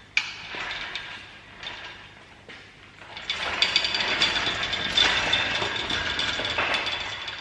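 Ratchet tool working bolts during engine teardown: a short rattling run at the start, then a longer, denser stretch of rapid clicking with a steady high tone from about three seconds in.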